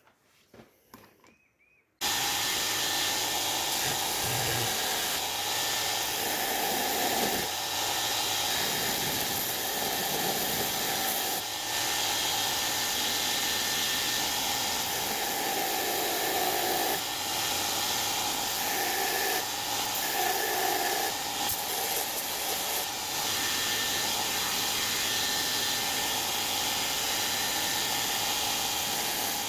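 A power tool running steadily with a hissing whir, starting suddenly about two seconds in.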